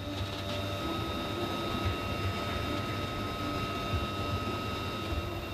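Steady whine and rumble of a UH-1Y Venom helicopter's twin turboshaft engines and rotor, heard from inside the cabin. Several high steady whine tones sit over a low rumble.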